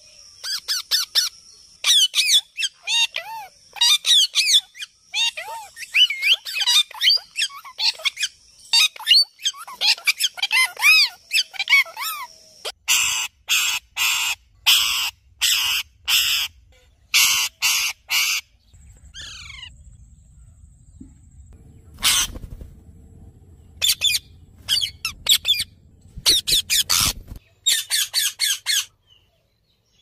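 Indian ringneck and Alexandrine parakeets calling: quick warbling chirps and whistles, then about halfway through a run of loud harsh screeches. After that come a couple of falling whistles and more bursts of chattering calls near the end.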